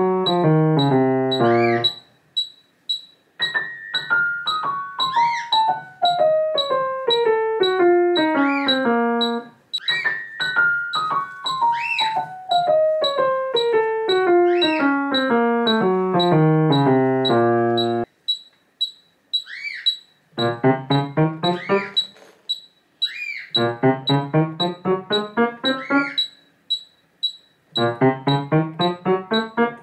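Yamaha grand piano played in fast, even scale runs: two long runs falling across several octaves, then shorter up-and-down patterns broken by short pauses, and a rising run starting near the end.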